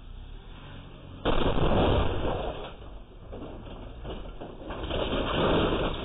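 Toyota Highlander SUV suddenly under hard throttle, its engine racing and tyres spinning on the concrete driveway as it lurches out of control. The loud noise starts abruptly about a second in and swells again near the end as the SUV smashes into the brick planter.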